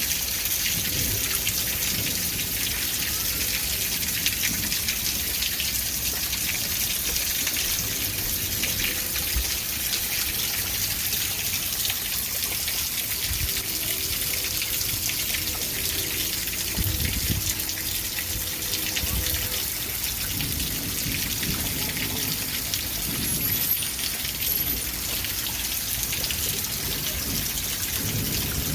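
Steady rain falling, an even hiss, with a few low rumbles in the second half.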